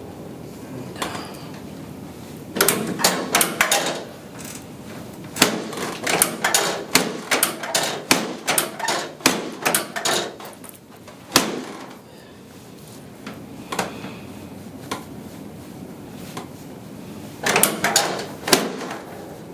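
Rapid sharp clacks and knocks from chiropractic adjusting on a treatment table, in three bursts with quieter stretches between: a short burst early, a long run of strokes through the middle, and another short burst near the end.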